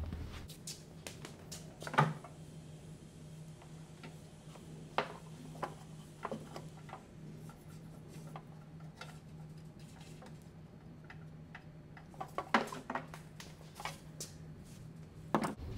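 Scattered light clicks and knocks of a thick 4-gauge copper battery cable being handled and pulled out to length against a wooden workbench and mower chassis, with a sharper knock about 2 seconds in and a flurry of them near the end, over a faint steady low hum.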